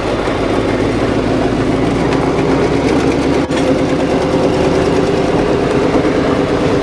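Motorhome engine and road noise heard from inside the moving vehicle: a loud, steady drone with a brief break about halfway.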